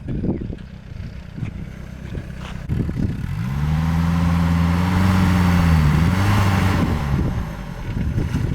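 Old Tata Safari 4x4's engine revving under load off-road: about three seconds in the revs climb to a steady high note, then ease off and fade a few seconds later, over rough tyre and wind noise.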